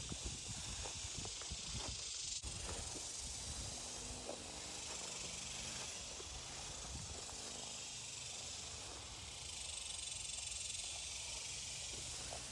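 Quiet, steady outdoor hiss over a low rumble, with faint rustles of footsteps through tall grass.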